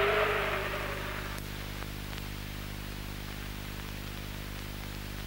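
Steady hiss and hum of an old film soundtrack. A wavering, gliding tone fades out within the first second.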